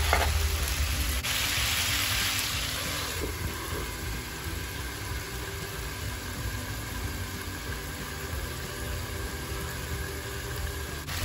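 Stir-fry of pork belly, chillies and mushrooms cooking in a wok under a glass lid: a muffled sizzle over a steady low hum, with a louder hiss for about two seconds near the start.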